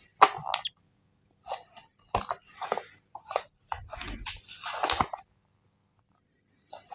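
Paper safety and warranty leaflet rustling and crinkling close to the microphone in irregular bursts as it is unfolded and handled, with a couple of soft knocks; it stops about five seconds in.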